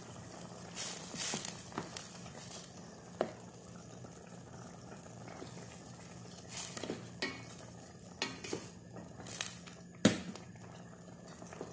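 Wooden spoon stirring chicken pieces in a stainless steel stockpot of boiling water, scraping and knocking against the pot now and then, the sharpest knock about ten seconds in, over steady bubbling.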